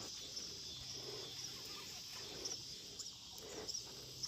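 Insects chirping steadily in a high, evenly pulsing drone, with low animal calls sounding now and then underneath.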